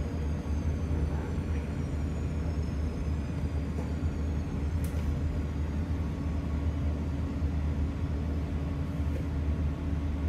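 Steady low hum of commercial kitchen equipment running, with faint high tones slowly falling in pitch.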